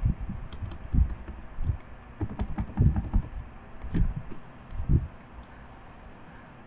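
Computer keyboard keystrokes: irregular taps and clicks that thin out about five seconds in.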